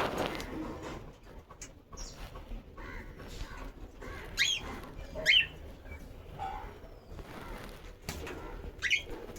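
Cockatiel giving a few short, sweeping chirps, two close together in the middle and one near the end.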